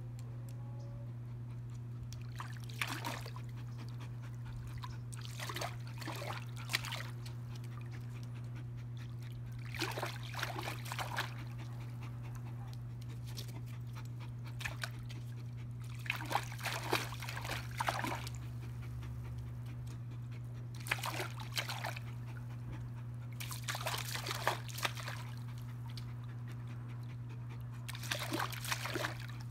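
Dog pawing at water, each stroke a short splash, in bursts every few seconds, over a steady low hum.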